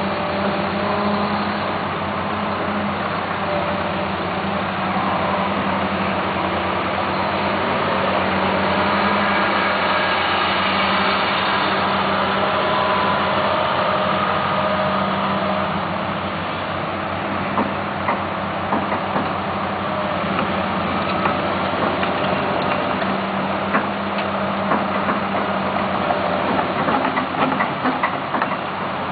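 John Deere 200LC hydraulic excavator's diesel engine running steadily while the machine works its boom, bucket and swing, getting louder for a while in the middle. Sharp short knocks come and go in the last third.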